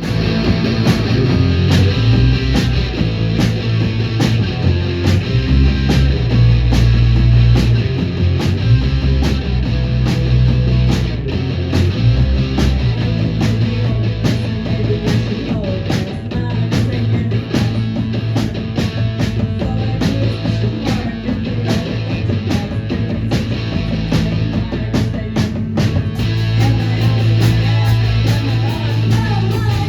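A rock band playing live: electric guitar, bass and drums, with a steady, hard-hit beat.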